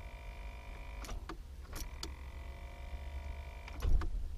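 Land Rover TD5 Discovery's starter solenoid clicking as the ignition key is turned, with no cranking of the starter motor: a few faint clicks, then a louder dull click near the end. A click with no crank is typical of worn solenoid contacts on these starter motors.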